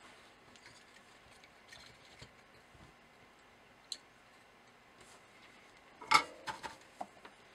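Light clicks and taps of a circuit-board badge with plastic pin headers being handled, with a louder cluster of knocks a little after six seconds as it is set down on the tabletop.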